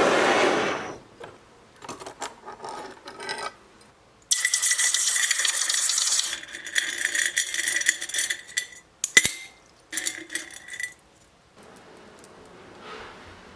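Small sterling silver chain links clinking and rattling, with bursts of steady hiss carrying a faint high whistle and one sharp click in the middle.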